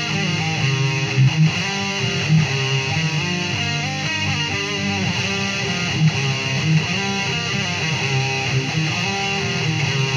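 Instrumental progressive metal: an electric guitar plays a busy line of short, quickly changing notes over a steady, pulsing low bass part.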